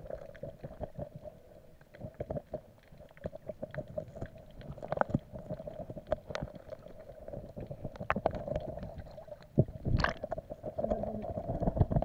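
Muffled underwater sound picked up by a submerged camera: a steady hum with many small clicks and knocks, and one louder knock about ten seconds in.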